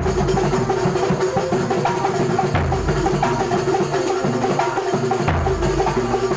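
Kuntulan percussion ensemble playing: drums beating a steady, busy rhythm, with a held pitched tone and short pitched notes over the beat.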